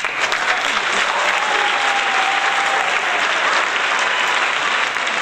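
Applause: many people clapping steadily, a dense crackle of hand claps.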